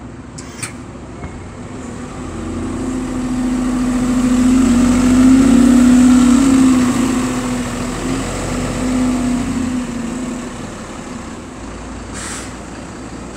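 Heuliez GX 127 diesel city bus driving past close by, its engine a steady low drone. It grows louder as the bus approaches, is loudest about five seconds in as the rear engine bay passes, then fades as the bus pulls away.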